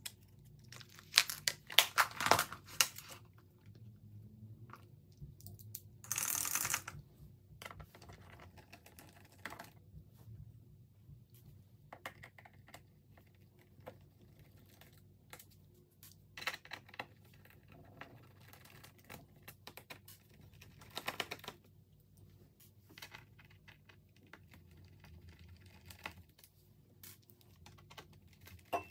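Small plastic and metal clicks and rattles from a precision screwdriver kit and its plastic bit case as screws are taken out of a laptop's bottom cover. A dense cluster of clicks comes in the first few seconds and a short rustle about six seconds in, then sparse light clicks.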